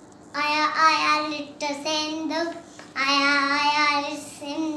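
A small boy singing in a high voice: a few short phrases, then one long held note about three seconds in.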